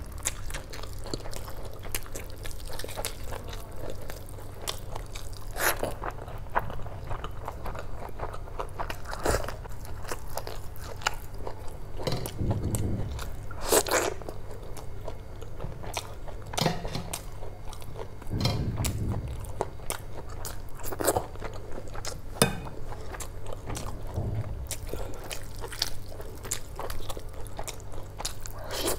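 Close-miked eating: biting and chewing spicy whole chicken curry with rice, a string of short crunchy clicks and chewing sounds.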